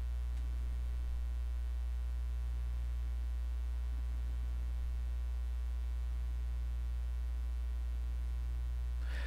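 Steady low electrical hum with faint even overtones; no handling or sewing sounds stand out.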